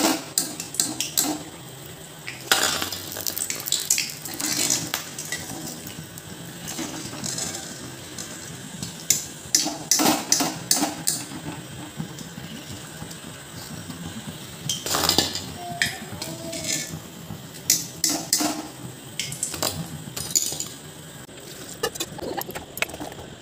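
Wire skimmer clinking and scraping against an iron kadai and a steel bowl as fried vadas are lifted out of hot oil: sharp, irregular metal clinks.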